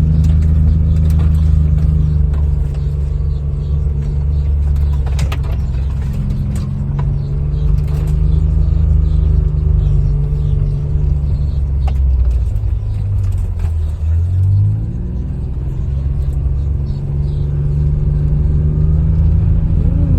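A motor vehicle's engine running steadily, slowing about fourteen seconds in and then picking up speed again with a rising pitch. A few light knocks sound over it.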